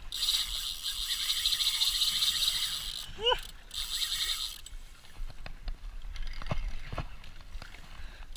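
Daiwa Saltiga 14000-XH spinning reel being cranked hard, a fast steady whirring of its gears as line is wound in, fading to a few light clicks in the second half. A short rising-and-falling call cuts in about three seconds in.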